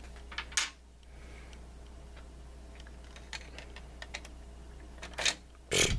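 Light, irregular clicks and taps of small plastic action figures being handled, with a louder knock near the end, over a low steady hum.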